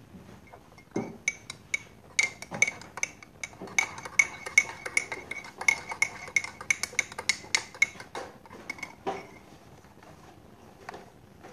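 A small teaspoon stirring cocoa and sugar into milk in a mug, clinking rapidly against the sides with a ringing note, for about eight seconds before it stops near the end.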